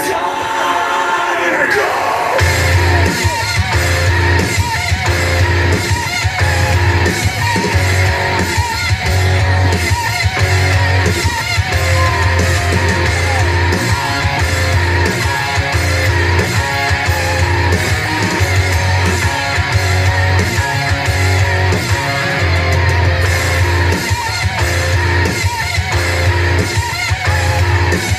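Heavy-metal wrestling entrance music with electric guitar and a steady pounding beat; the full band kicks in about two seconds in.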